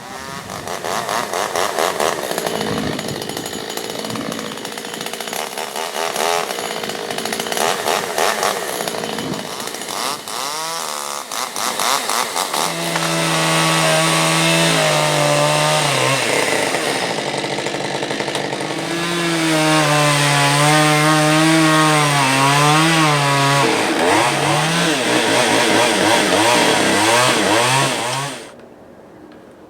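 Chainsaw running at high revs and cutting wood, its engine pitch dipping and recovering under load. The sound cuts off abruptly near the end.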